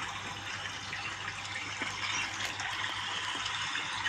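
Water rushing steadily with an even hiss, with a faint low hum underneath.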